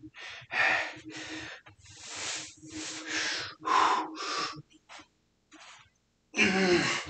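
A man's heavy, rapid breathing from the effort of a set of squats: a string of loud puffed breaths and gasps, ending in a louder voiced grunt about six and a half seconds in.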